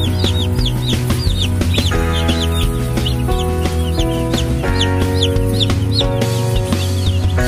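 A flock of young broiler chicks peeping constantly, many short high cheeps every second, over louder background music.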